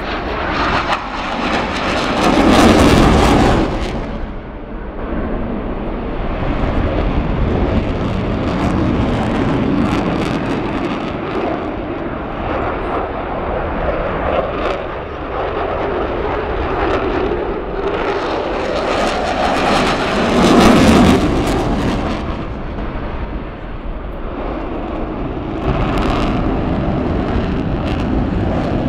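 Eurofighter Typhoon jet engines, its two EJ200 turbofans, during a display flight. The engine noise rises and falls as the jet passes and manoeuvres, loudest about three seconds in and again about twenty-one seconds in.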